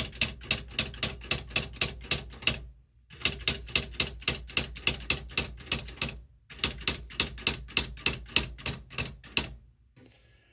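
Smith Corona SL 500 electric typewriter typing as its keys are pressed in quick succession, about five strikes a second, in three runs with short pauses between them; the typing stops about a second before the end.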